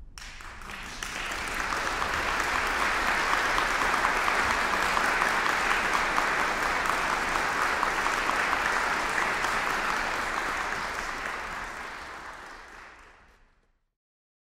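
Audience applauding: the clapping swells in over the first couple of seconds, holds steady, then fades away near the end.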